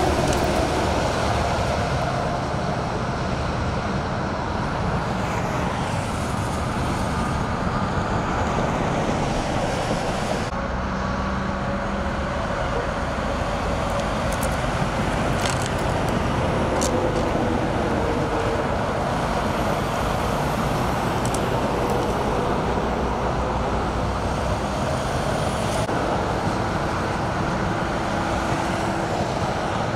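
Steady freeway traffic noise, a constant rumble of passing vehicles, whose tone shifts slightly about ten seconds in.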